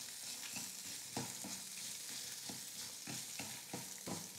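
Wooden spatula stirring and scraping diced coconut, urad dal and dried red chillies around a metal kadai, with scraping strokes about twice a second over a faint sizzle of the little oil in the pan. This is the coconut being sautéed with the roasted dal.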